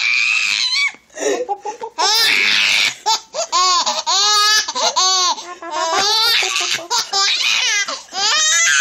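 An infant laughing hard, a string of high-pitched laughing bursts with breathy gasps between them.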